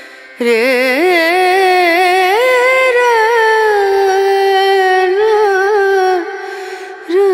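Background music: a Hindi song with a singer holding one long, ornamented phrase whose pitch wavers and glides. The phrase starts about half a second in and stops about six seconds in, and the next phrase begins near the end.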